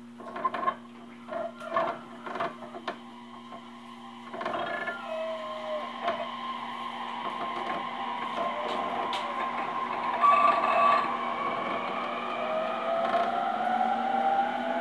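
E231 series electric train pulling away from a station: a few sharp knocks in the first seconds, then the traction inverter and motors whining in several tones that climb steadily in pitch as the train accelerates, over the sound of the wheels picking up.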